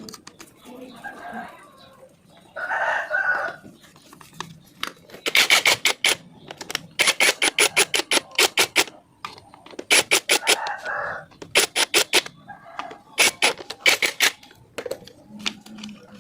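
A rooster crows twice, about three seconds in and again about ten seconds in. In between come several short runs of rapid sharp clicks, roughly ten a second, which are louder than the crowing.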